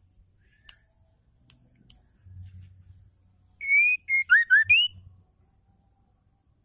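Female white-rumped shama (murai batu) calling: a short phrase of loud whistled notes past the middle, one longer rising whistle followed by several quick short notes. A few faint clicks come before it.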